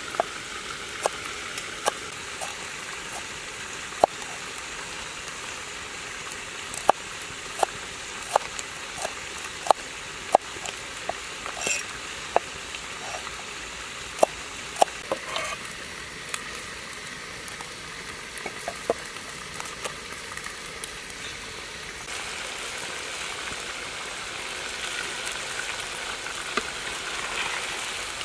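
Cleaver chopping red chillies on a wooden chopping board: irregular sharp knocks over a steady hiss. The knocks stop about twenty seconds in and the hiss gets louder: meat sizzling in a wok.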